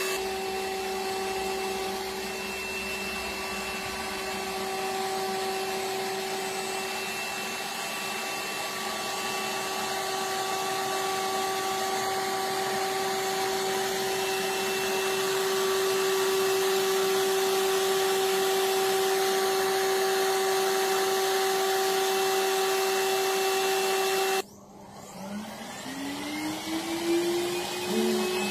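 An electric motor running with a steady whine over a hiss. It cuts off suddenly about 24 seconds in, then spins back up with a rising whine that settles near the end.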